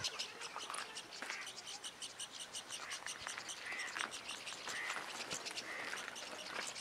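Outdoor animal calls: a fast, evenly pulsed high-pitched chirring, with a few short chirps over it about four to six seconds in.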